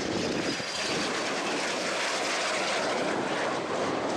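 BAe Hawk 127 jet trainer's Adour turbofan making a steady rushing jet roar as the aircraft flies a low, slow pass with its landing gear down. A faint high whine sits on top in the first second.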